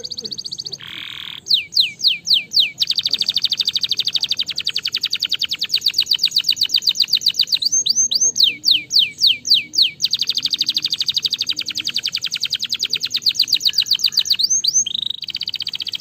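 Domestic canary singing: long, very fast rolling trills broken by runs of sharp falling whistled notes, about four or five a second, near the start, around the middle and briefly near the end.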